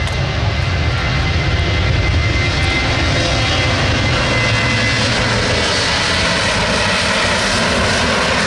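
Boeing 737-800's twin CFM56 turbofan engines running at high power as the airliner rolls along the runway: a loud, steady jet roar with a thin high whine through it.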